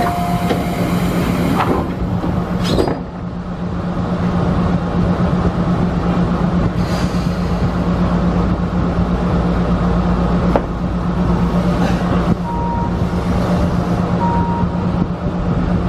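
Electric commuter train heard from inside the driver's cab while it stands: a steady low hum from its onboard equipment, with a couple of sharp clicks. Near the end a thin high tone comes and goes as the train begins to move off.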